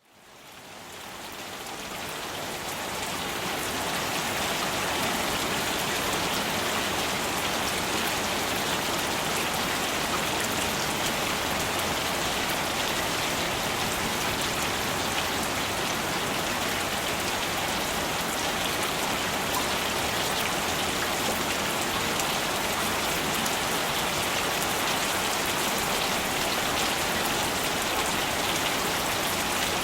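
Steady rain falling and pattering on surfaces, a dense even hiss of many drops. It fades in over the first few seconds, then holds steady.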